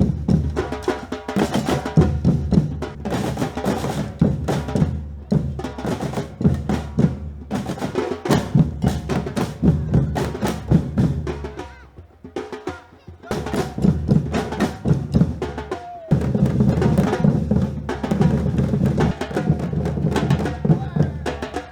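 Live batucada percussion ensemble playing a fast, dense drum groove. The playing drops away briefly about twelve seconds in, then builds back, with the full band coming in again about sixteen seconds in.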